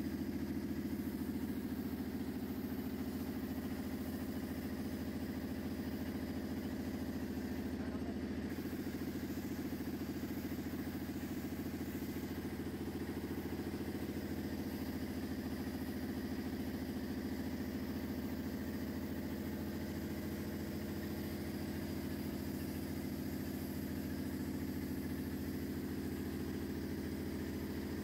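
Air compressor motor running steadily, supplying air to a paint spray gun in use.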